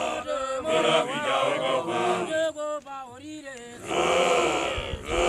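A group of men chanting. A lone voice with sliding, wavering pitch carries the song for a few seconds, then the whole group comes back in together about four seconds in.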